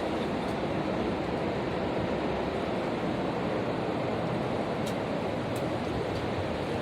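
Pressure washer spraying water: a steady rushing hiss, with a couple of faint clicks around five seconds in.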